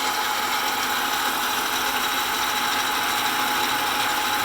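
9-inch South Bend Model A metal lathe running under power feed while taking a heavy 0.100-inch-deep cut in steel: a steady machine whine over even running and cutting noise. The lathe is taking the cut without a problem.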